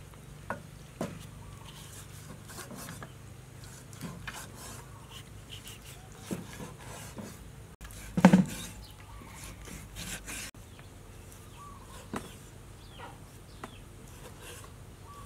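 Hand peeler scraping the skin off a wax gourd. About eight seconds in there is a loud knock as a peeled gourd is set into a stainless steel bowl. Later come a few sharp knocks of a cleaver chopping pork on a wooden board.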